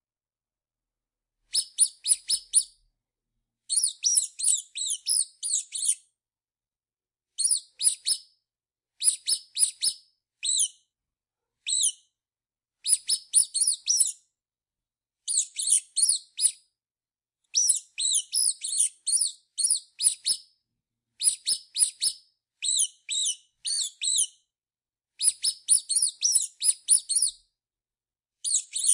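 Mouse squeaking: quick runs of high-pitched squeaks, several a second, in bursts of about one to two seconds separated by short silences.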